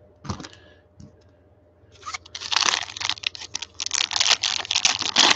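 Foil wrapper of a Panini Prizm basketball card pack crinkling and tearing as it is ripped open by hand. The rustling comes in quick bursts starting about two seconds in, after a couple of soft clicks.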